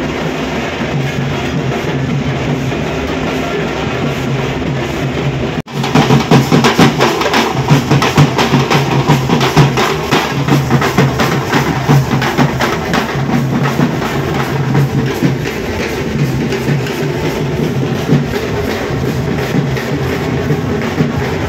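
Procession music plays; about six seconds in it cuts abruptly to a band of drummers beating waist-slung drums, a loud, fast, dense rhythm that carries on to the end.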